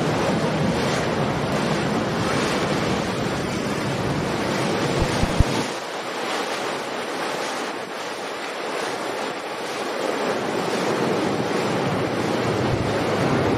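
Wind buffeting the microphone over the churning wash of a passing motor yacht's wake, with a brief low thump about five seconds in.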